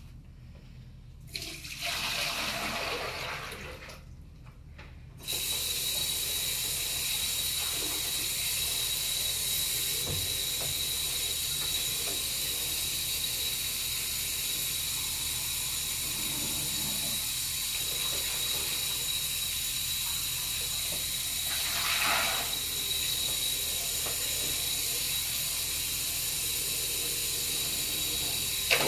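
Tap water running steadily into a bucket, with a thin steady whistle; it starts briefly about a second in and then runs on without a break from about five seconds in.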